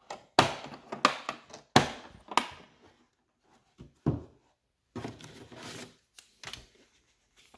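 Latches of a Milwaukee M12 FUEL hard plastic tool case snapped open with four sharp clicks, then a thunk as the lid opens and a scuffing plastic rattle as it is handled, with a few lighter clicks near the end.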